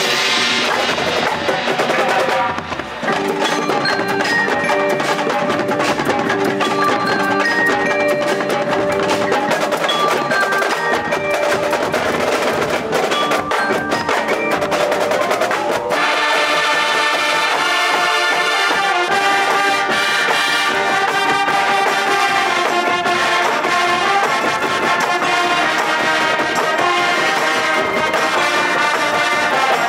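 A marching band playing in the stands, with a front ensemble of marimbas and other mallet percussion prominent. It starts with a sudden loud hit, and the music grows fuller with held chords about sixteen seconds in.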